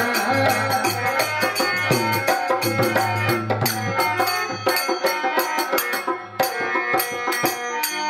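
Live Rajasthani devotional folk music: a keyboard melody under fast, busy percussion of hand drum and jingling rattles. The music thins briefly just before six seconds in, then comes back in with a strong beat.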